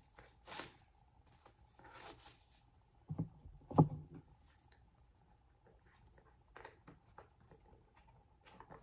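Ribbon rustling as it is pulled off a rigid cardboard gift box, then two knocks as the box is handled a little after three seconds in, the second the louder, followed by a few light taps of fingers on the box.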